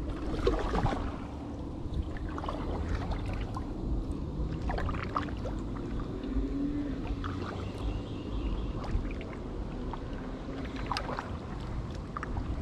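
A kayak on calm water: small splashes and trickling around the hull, with scattered light clicks and knocks, over a steady low rumble of wind on the microphone.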